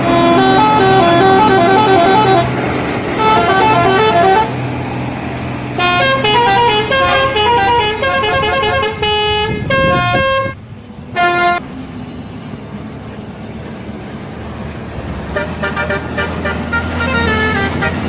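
Telolet bus horn playing quick melodic tunes of stepped notes, several horn tones at once, in repeated bursts that are fainter in the second half. A bus engine hums steadily underneath.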